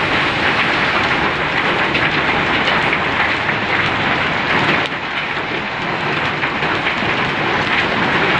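Hail mixed with heavy rain pelting a wet road and parked vehicles: a dense, steady patter of many small impacts, easing slightly about five seconds in.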